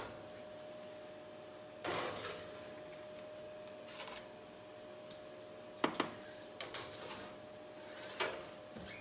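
Metal baking trays being put into an oven: a scrape about two seconds in, then several sharp metal knocks and clinks, over a faint steady hum.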